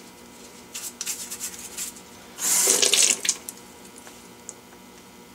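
An old, soft toothbrush scrubbing a small plastic Aerogarden water pump in a series of short scratchy strokes. About two and a half seconds in comes a loud burst of running water lasting about a second, the loudest sound here.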